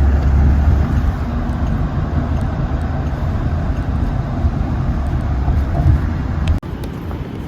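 Steady low rumble of a motor vehicle or road traffic, with no distinct events. The sound changes abruptly about two-thirds of the way in, dropping to a slightly quieter rumble.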